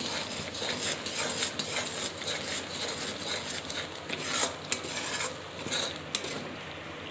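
Metal spatula stirring and scraping a thick milk, sugar and grated coconut mixture in a metal kadhai, with irregular scrapes against the pan and a couple of sharper clicks in the second half.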